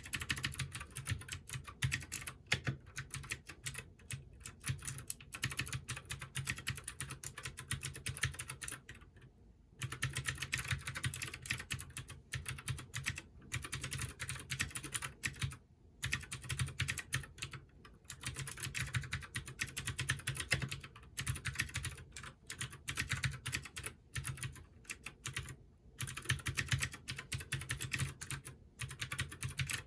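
Fast continuous typing on a Keychron K6 mechanical keyboard with Gateron Blue clicky switches, each keystroke a sharp click, with brief pauses about nine seconds in, about sixteen seconds in, and near the end.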